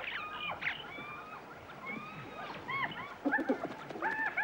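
Many short, high animal chirps, each rising and falling, repeated throughout at several pitches. A louder cluster of lower-pitched calls comes about three seconds in, and another near the end.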